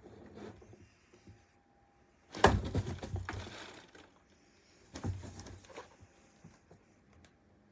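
A cat scrabbling and scraping on a cardboard box: a sudden crackly burst of scratching about two and a half seconds in, the loudest part, then a shorter one about five seconds in.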